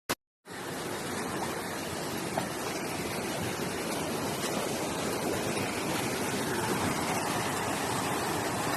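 Steady rushing of flowing water, preceded by a brief click at the very start.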